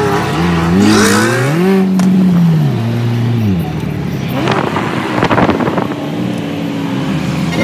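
Sports car engines revving in a convoy: the engine pitch sweeps up and down several times, then a rough, crackling stretch of noise, settling into a steadier engine tone near the end.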